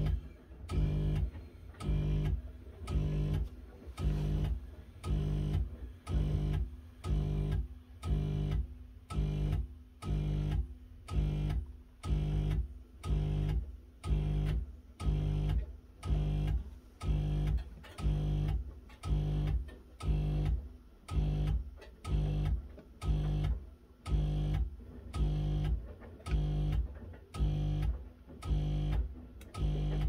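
Miele W1 washing machine running with a low hum that switches on and off about once a second, every pulse at the same pitch.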